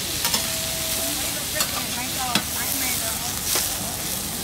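Yakisoba noodles and vegetables sizzling on a hot flat griddle while metal spatulas scrape and toss them. Several sharp spatula clacks against the griddle plate sound over the steady sizzle, the loudest about two and a half seconds in.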